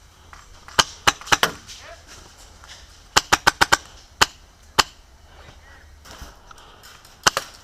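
Airsoft gun firing sharp single shots in quick groups: a cluster of four, then five in fast succession, a couple of single shots, and two more near the end.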